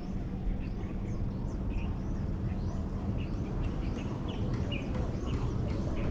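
Birds chirping, many short, high calls scattered throughout, over a steady low rushing background.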